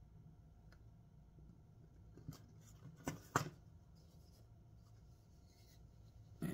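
Faint handling of knife packaging: a few short rustles and clicks, about two to three and a half seconds in, over a low steady room hum.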